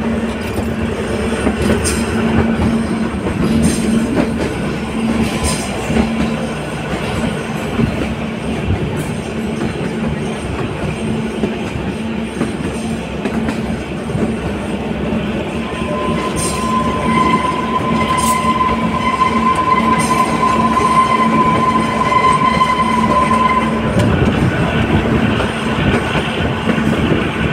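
Kalka–Shimla narrow-gauge toy train running, heard from an open coach doorway: a continuous rumble and rattle of the coaches with a steady low hum and occasional clicks from the rail joints. From a little past halfway to near the end, a long, steady, high-pitched squeal of wheels on a curve rises over it.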